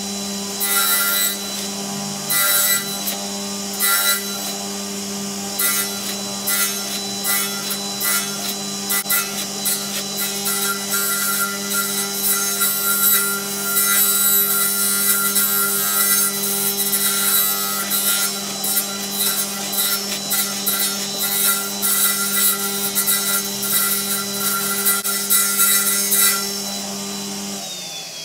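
Table saw running with a steady hum and high whine while its blade cuts a round wooden disc pushed through on a crosscut sled: short bursts of cutting at first, then near-continuous cutting from about ten seconds in. Near the end the saw is switched off and its whine starts to fall as the blade spins down.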